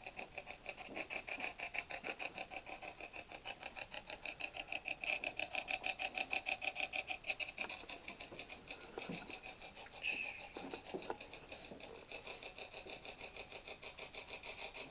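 Rapid, even electronic pulsing, about six or seven pulses a second, from a ghost-hunting device, with a few brief swooping fragments about nine to eleven seconds in.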